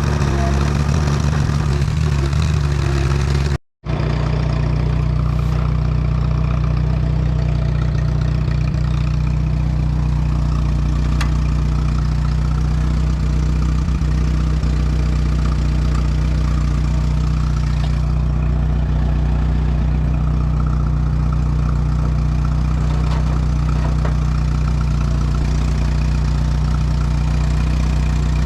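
Allis-Chalmers WD tractor's four-cylinder engine running steadily at a constant speed, with a brief break about four seconds in.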